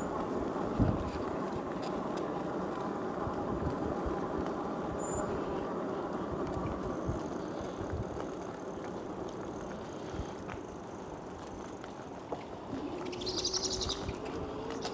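Riding noise from a moving electric bike: a steady rumble of tyres and wind with a faint motor whine. Near the end a whine rises in pitch, and a bird chirps briefly.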